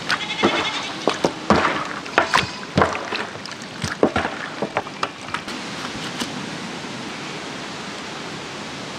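Raw chicken pieces being squeezed and turned by hand in a wet turmeric and salt marinade: irregular wet slaps and squelches for about six seconds, then only a steady hiss.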